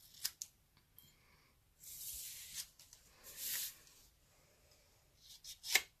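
Scissors cutting white cardstock around stamped words: a few short snips, two longer cuts about two and three and a half seconds in, then a cluster of quick snips near the end.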